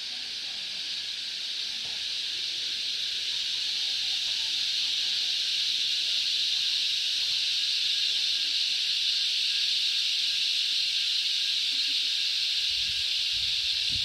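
Cicadas singing in chorus: a steady, shrill drone that swells a little over the first few seconds and then holds.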